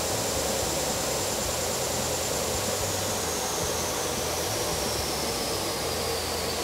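Combination belt and disc sander running, its disc sanding the edge of a wooden block that is held flat against it and then drawn away. The steady whooshing run carries a high whine that slowly drops in pitch from about halfway through.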